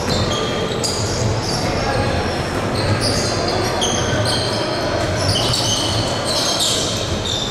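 Basketball in play in a gym: a ball bouncing on the court and many short, high-pitched sneaker squeaks, several a second, over the echoing hall.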